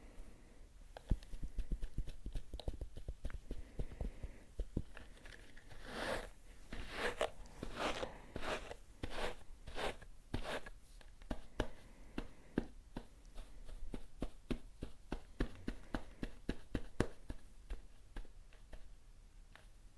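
Close-miked ASMR tapping and scratching: quick light taps and clicks throughout, with a run of louder scratchy strokes, about two a second, from about six to eleven seconds in.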